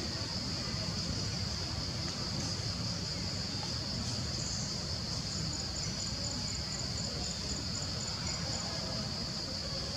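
A steady, shrill insect chorus from crickets or cicadas, with a second insect chirping about four times a second over a few seconds in the second half, above a low background rumble.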